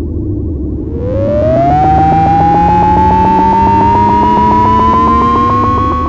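Synthesized science-fiction sound effect: over a low rumbling drone, a pulsing electronic tone swoops up about a second in, then keeps climbing slowly in pitch for some four seconds and cuts off suddenly near the end.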